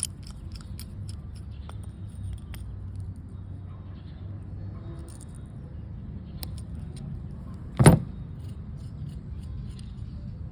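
Small metallic clicks and taps of a screwdriver and carburetor parts as a jet is unscrewed from a Keihin carburetor, over a steady low rumble. One loud knock about eight seconds in.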